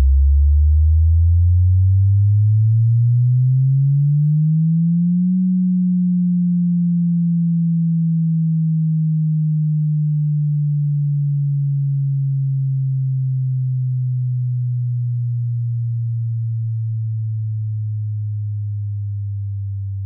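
Subwoofer test tone: a pure sine sweep rising from about 40 Hz to about 200 Hz over the first five seconds, then gliding slowly back down to about 100 Hz.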